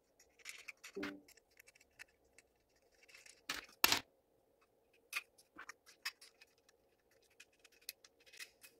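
Faint, scattered clicks and taps of small metal hardware: T-nuts being fitted onto screws in a 3D-printed plastic motor mount. There are two louder knocks about three and a half seconds in.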